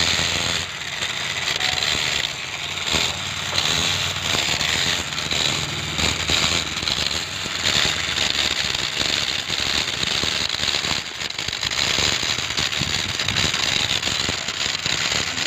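Borewell drilling rig running, with a loud, steady, dense rattling crackle over a low machine rumble.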